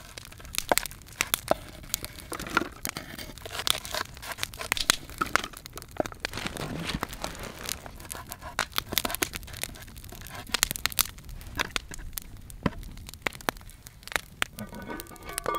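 Knife slicing through raw onions on a wooden cutting board: crisp, irregular crunching cuts, over a crackling wood campfire.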